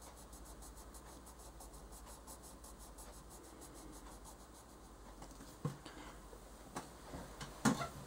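Faint scratching of a Prismacolor coloured pencil shading on paper. A few small knocks come in the last seconds, the loudest near the end as a head bumps the camera.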